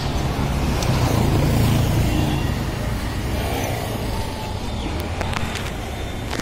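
Road traffic rumbling, swelling about a second or two in as a vehicle passes, with a few faint metallic clicks from spanners on the scooter's wheel hub.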